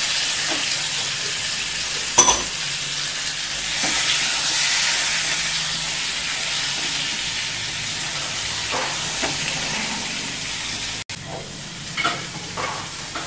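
Boiled elephant foot yam cubes sizzling in hot spiced oil in a nonstick kadai while being stirred with a silicone spatula: a steady frying hiss, with a sharp knock about two seconds in and a few scraping strokes near the end.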